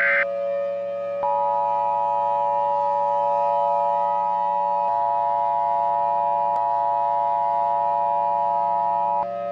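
Emergency Alert System attention signal: the two-tone chord, starting about a second in, held steady for about eight seconds, then cut off. It comes just after the tail of a burst of SAME digital header data. A steady low drone runs underneath.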